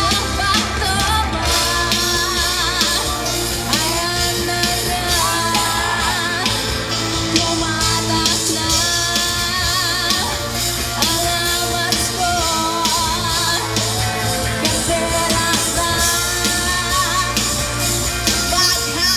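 Pop song with a sung vocal over a steady drum beat and guitar.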